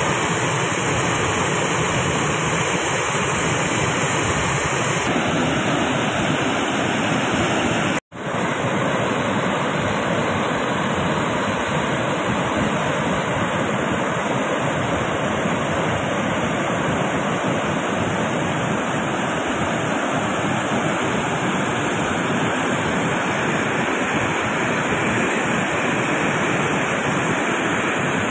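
Floodwater rushing through a dam's open spillway gates and churning below, a steady rush of water noise that cuts out for an instant about eight seconds in.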